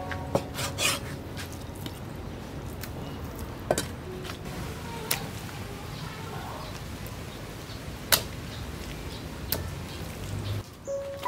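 A cleaver knocking on a round wooden chopping block as raw pork is sliced: about six sharp, isolated knocks, irregularly spaced one to three seconds apart.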